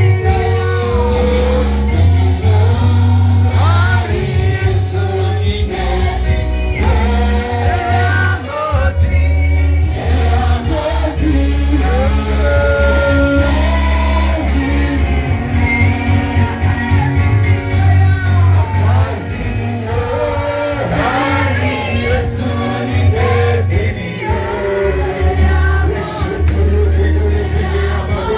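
A gospel worship song sung by a group of voices over band accompaniment with a loud, steady bass.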